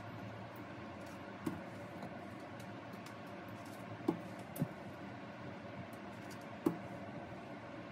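Strawberries being set down one at a time on a glass plate: four soft knocks, one about a second and a half in, two close together around four to five seconds, and one near the end.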